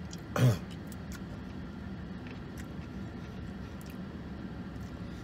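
A man chewing a mouthful of food, with faint clicks of a fork, over a steady low hum inside a car's cabin. A short voiced sound comes about half a second in.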